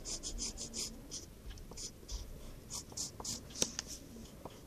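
Graphite pencil scratching across paper while drawing an outline, in short strokes several times a second, with a few light ticks of the pencil on the page.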